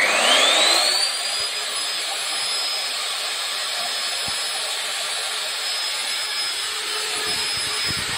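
Dongcheng DZZ02-130 diamond core drill's motor finishing its spin-up with a rising whine, then running steadily at full speed off-load, a high steady whine over a whirring rush.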